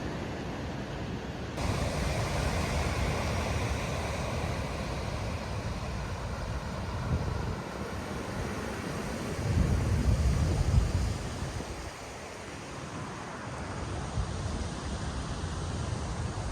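Surf washing onto a beach, with wind buffeting the microphone, heaviest about ten seconds in.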